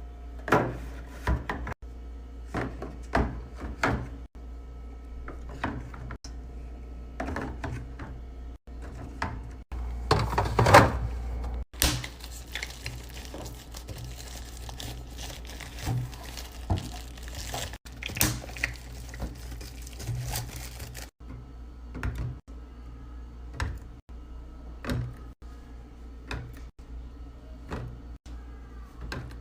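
Items being set down and arranged in a fridge: a string of light knocks and clicks from containers and bottles, with a stretch of plastic packaging crinkling in the middle, over a steady low hum.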